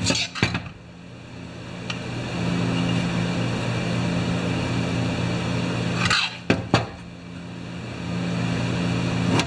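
Sharp metal clicks and knocks from handling the partly disassembled Homelite C51 chainsaw body on a workbench: a cluster at the start and another about six seconds in, over a steady low hum.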